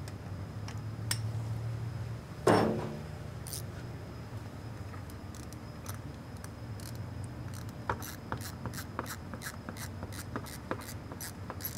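Hand ratchet wrench clicking in quick strokes, about four clicks a second, through the last few seconds while working bolts under a truck. A single loud metallic clank that rings briefly comes about two and a half seconds in, over a steady low hum.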